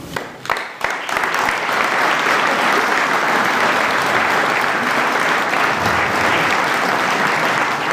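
Audience applause: a few scattered claps at first, filling out into steady clapping after about a second.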